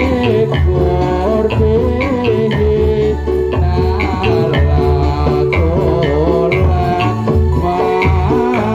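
Javanese dolalak dance music played live: hand drums and a large bass drum keep a steady beat under a wavering melody.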